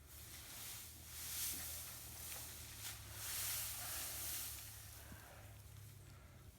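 Outdoor ambience: wind rustling through trees in slow swells, loudest about a second and a half in and again past three seconds, over a steady low hum.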